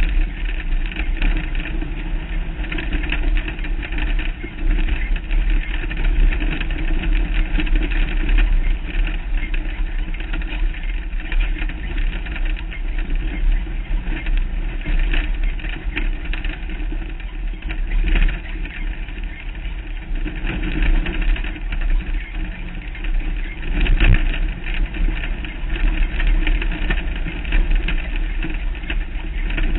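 Off-road race vehicle running at speed over a rough dirt track: steady engine and drivetrain noise, with wind buffeting the exposed microphone. There are a couple of harder jolts, the clearest about 24 seconds in.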